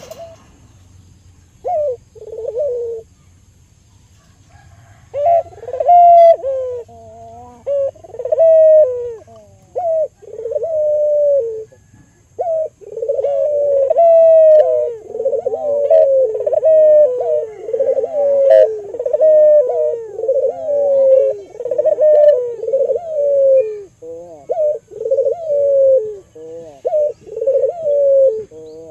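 Albino puter dove cooing over and over, loud, low gliding coo phrases. A few short coos start it off, and from about halfway the cooing runs almost without a break.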